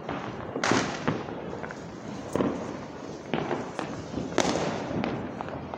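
Firecrackers and fireworks going off: a continuous crackle with several sharp bangs, the loudest about a second in and again near two and a half seconds.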